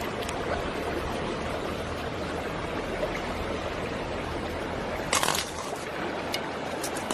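Steady rush of flowing river water, with a short burst of clicks and scraping about five seconds in.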